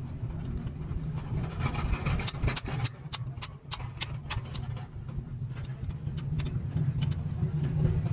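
An engine running steadily with a low hum, with a run of short sharp clicks or taps over it, bunched between about two and four and a half seconds in.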